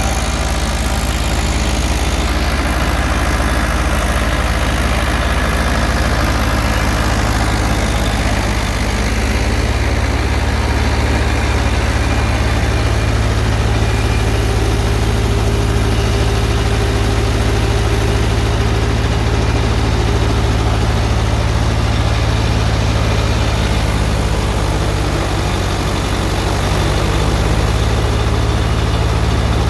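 Heavy diesel farm-machinery engine running steadily, its pitch shifting slightly about nine seconds in and again near the end.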